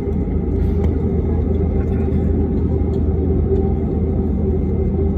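Airbus A320neo cabin noise heard from a passenger seat during takeoff: a steady, loud rumble of the engines and airflow with a droning tone.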